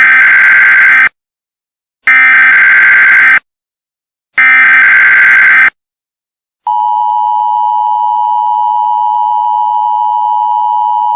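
Emergency Alert System broadcast tones: three loud bursts of SAME header data, a harsh digital screech each about a second long with about a second of silence between. About six and a half seconds in, the steady two-tone EAS attention signal begins.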